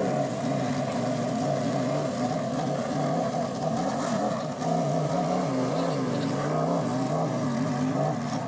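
Several motorcycle engines running at low revs as the riders crawl along in a slow race, the pitch wavering up and down with small throttle changes.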